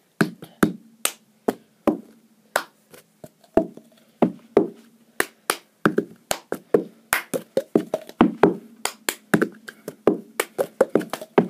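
Cup song routine played on a plastic cup: hand claps, taps on the cup and the cup knocked and set down on a hard surface, in a long run of sharp hits that comes thicker in the second half.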